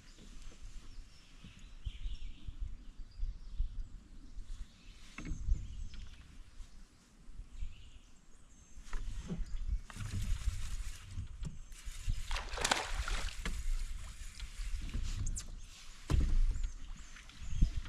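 Kayak being handled on the water: irregular low knocks and bumps against the hull, with a brief swish about two-thirds of the way through.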